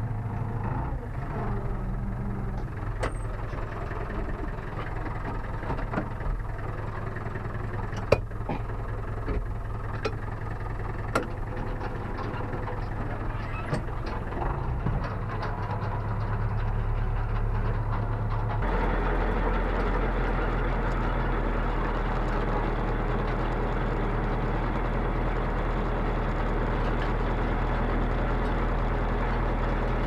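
David Brown tractor engine running, heard from inside the cab, with a few sharp clanks. About two-thirds of the way through the sound steps up louder and busier as the tractor pulls an elevator potato digger through the soil.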